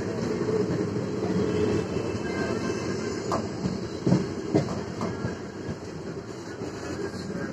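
Passenger train coach running on the track, heard from its open doorway: a steady rumble of wheels on rails, with a few sharp clicks and knocks between about three and five seconds in.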